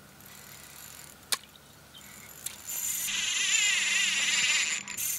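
A spinning fishing reel ratcheting rapidly, starting abruptly about three seconds in and lasting about two seconds. A single sharp click comes about a second in.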